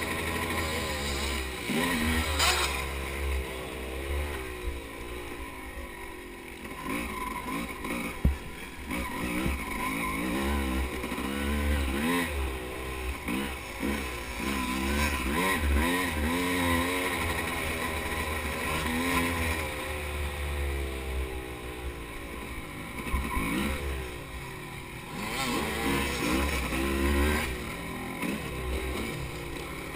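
Dirt bike engine revving up and down through the gears under hard riding on a motocross track, with heavy wind buffeting on a helmet-mounted camera and a sharp knock about eight seconds in.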